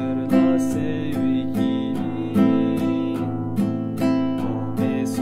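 Nylon-string classical guitar strummed on an A minor chord in a steady three-stroke pattern: a downstroke on the bass strings, then two downstrokes on the treble strings, repeating evenly.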